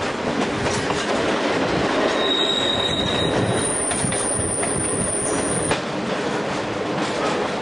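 Kuranda Railway passenger train running over the track, heard from an open carriage window as a steady rolling rumble. From about two seconds in, the wheels squeal on a curve in a thin high tone that jumps higher and stops suddenly near six seconds.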